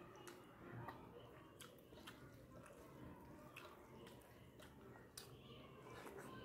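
Faint chewing and wet mouth clicks from someone eating rice and curry by hand, with soft squishes of fingers mixing rice on a steel plate. The small clicks come irregularly, a few each second.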